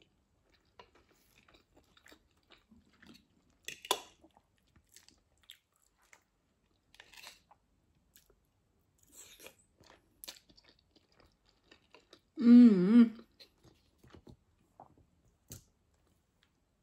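Close-up chewing and wet mouth sounds of someone eating tuna pasta salad, with small clicks of a fork against a glass bowl and a sharper click about four seconds in. About twelve and a half seconds in comes the loudest sound, a short voiced hum with a wavering pitch.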